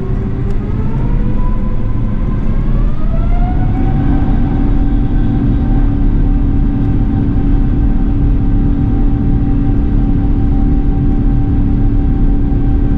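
Airbus A350-900's Rolls-Royce Trent XWB jet engines spooling up to take-off thrust. A whine rises over the first four seconds or so and then holds a steady pitch, over a heavy low rumble.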